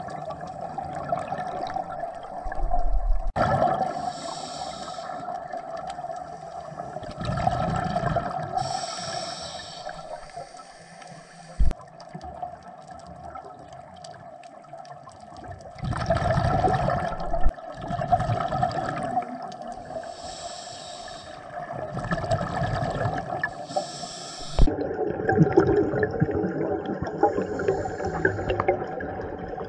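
Scuba regulator breathing underwater: hissing inhalations through the demand valve alternate with gurgling bursts of exhaled bubbles, repeating every few seconds over a steady low hum.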